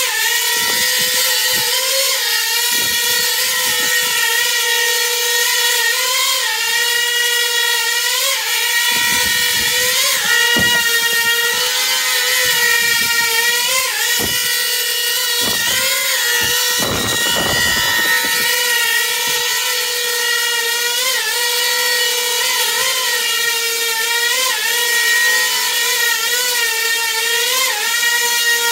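Small coaxial drone's counter-rotating propellers and brushless motors whining steadily in a hover. The pitch wavers up and down every second or two as the flight controller twitches the craft during an Ardupilot AutoTune.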